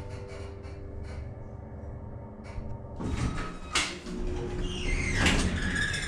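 Guthrie hydraulic elevator car arriving at its floor with a steady hum, then about halfway through a click and the sliding doors opening, with a squeal that drops in pitch as they run open.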